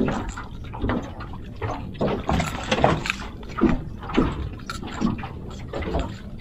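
Small waves slapping against an aluminum boat's hull in irregular splashes, about one every half second to second.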